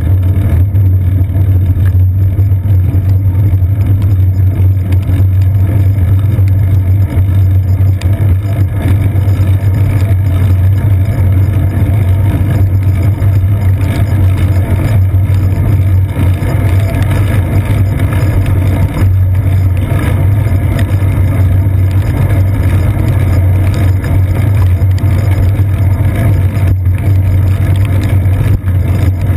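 Loud, steady low rumble of a bicycle rolling over wet pavement, with tyre noise and frame vibration carried straight into a GoPro Hero 2 mounted on the seat post.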